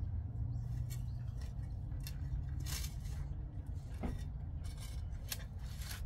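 Shovel digging into and turning loose garden soil: a handful of short scrapes and crunches spread over several seconds, over a steady low rumble.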